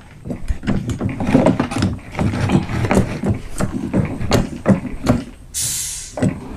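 Manual knapsack sprayer being pumped up and tested with air: a run of quick plastic clicks and knocks from the hand pump and lever, then a short hiss of air from the lance nozzle about five and a half seconds in.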